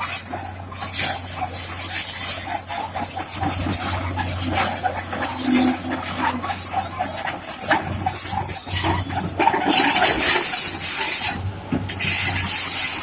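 Rock-cutting work on a foundation dig: loud, steady hissing with irregular metallic clattering over a low hum. The hiss cuts out for a moment about eleven seconds in, then returns.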